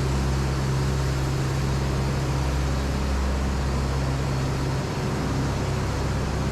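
Steady drone of sawmill machinery running, an even low hum with a hiss above it and no distinct cuts or knocks.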